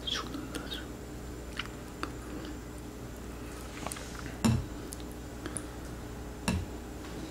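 Chopsticks lifting and stirring ramen noodles in broth in a glass bowl: small wet squelches and clicks, with two louder knocks about four and a half and six and a half seconds in.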